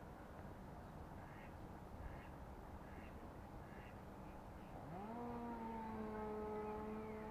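Small brushed electric motor, salvaged from a hair dryer, driving a radio-controlled toy boat with a faint steady whine. Just before two-thirds in, the whine sweeps up in pitch as the motor spins up, then holds steady.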